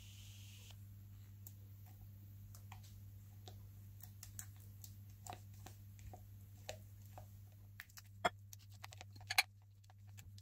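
Scattered light clicks and taps of kitchenware being handled, over a steady low hum; two sharper clicks stand out near the end.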